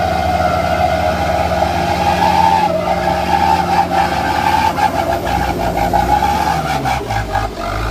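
Diesel engines of a crawler bulldozer and a loaded light dump truck running under load as the bulldozer pushes the truck through mud. A run of sharp knocks comes in from about halfway, and the engine note drops near the end.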